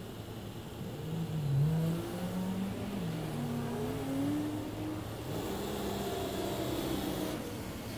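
A road vehicle's engine accelerating, its pitch rising in several steps over a few seconds, then a steadier engine sound with tyre hiss as a car passes.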